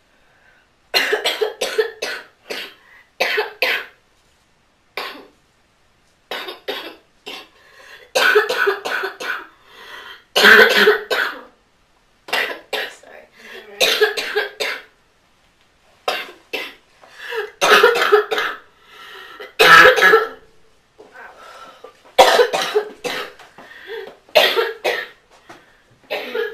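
A girl coughing in repeated fits of a few sharp coughs each, with short pauses between the fits.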